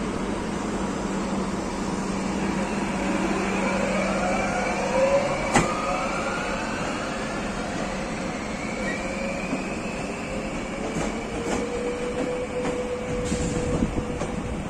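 HŽPP series 6112 electric multiple unit pulling away and accelerating, its traction motors and inverters giving several rising whines over the rumble of the train. A sharp click comes about five and a half seconds in.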